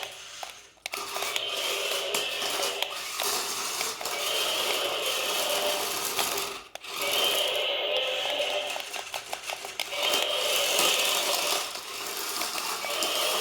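A remote-control T-Rex toy running: its small electric gear motor whirs and rattles, in a cycle that repeats about every three seconds.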